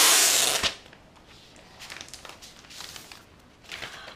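Clear protective plastic film being peeled off the back of an iPad Pro: a loud tearing hiss that stops within the first second, then faint crinkling of the loose plastic.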